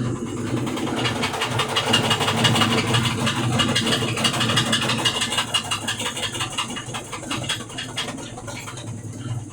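Brastemp BWK12 washing machine spinning with a loud, fast rattle like a shaker over the drum's hum, the spin-cycle fault the owner is showing. The rattle eases somewhat over the last few seconds.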